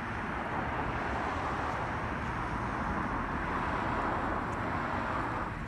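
Steady rushing noise of road traffic, swelling slightly and then cutting off suddenly.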